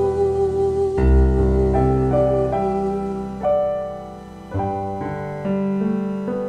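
Piano accompaniment playing the slow closing chords of a hymn. A few chords are struck about a second or so apart, each left to ring and die away.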